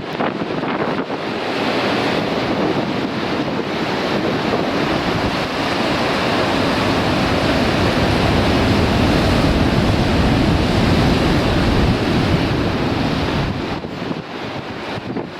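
Ocean surf crashing on a rocky shore, with strong wind buffeting the microphone. The rush of the surf builds about a second in, holds loud and eases off near the end.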